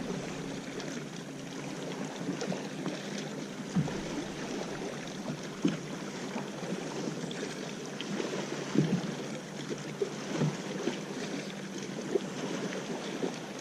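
Water lapping and splashing against a fishing boat's hull, with a few scattered knocks in the boat.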